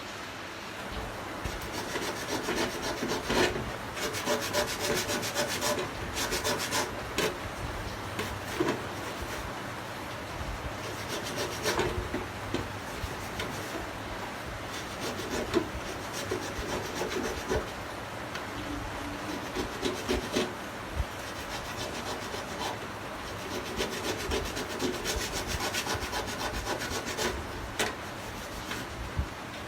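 Irregular scraping and rubbing strokes by hand on the aluminum evaporator of a refrigerator, cleaning the metal around a puncture ready for brazing.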